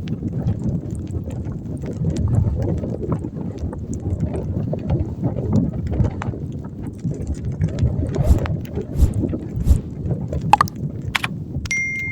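Wind buffeting the microphone in a blizzard: a rough, gusting rumble with scattered clicks and knocks, and a brief high beep just before the end.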